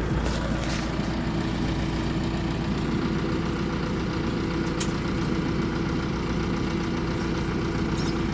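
Backhoe loader's diesel engine idling steadily.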